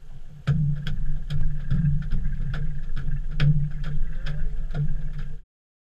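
Steady low hum of a boat's motor, with sharp regular clicks about two a second as a line is hauled up over the davit's pulley. It cuts off suddenly near the end.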